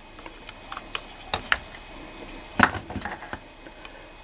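Handling noise: a few scattered, irregular clicks and knocks as a Geiger counter's headset and metal probe are moved about on its case, the loudest knock about two and a half seconds in.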